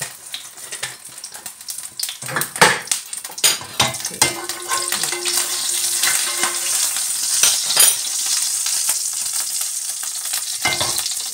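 Cumin seeds sizzling in hot oil in a non-stick frying pan, the sizzle growing louder about halfway through as the seeds toast. A spoon stirs them, scraping and knocking against the pan several times.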